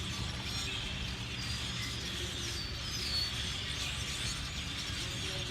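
A large flock of birds calling all at once, a dense overlapping chatter of short chirps and squeaks from birds gathering at a roost. A steady low rumble sits underneath.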